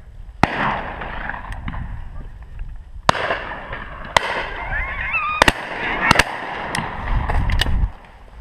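Shotgun shots, about a dozen in eight seconds: the loudest come early, each with a rolling echo, and others are fainter and further off. A bird calls briefly in the middle.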